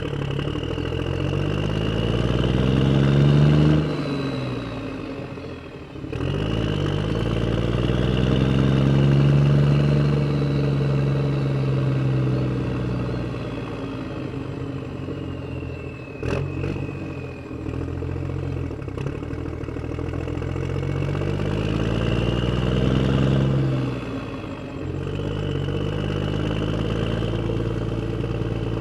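A vehicle motor running and revving up and down in long swells, easing off twice, with a single sharp click about sixteen seconds in.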